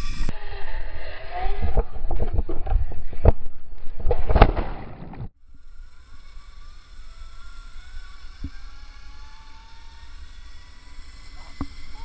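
Heavy wind rumbling on the microphone with scattered knocks and a loud thump, cut off suddenly about five seconds in. After it, a quieter steady hiss with a faint whine slowly rising in pitch, typical of a zipline trolley's pulleys rolling faster along the steel cable.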